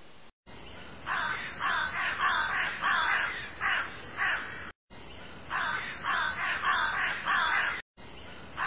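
A bird calling over and over, a run of harsh calls at about two or three a second, broken twice by abrupt short dropouts.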